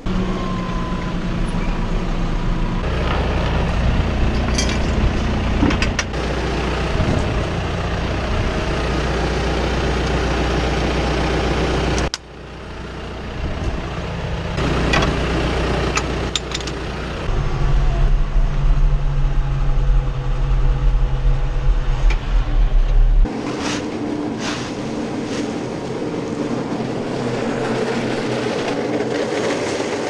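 John Deere tractor's diesel engine running steadily, with a few short knocks. The engine sound changes abruptly about 12 and 23 seconds in.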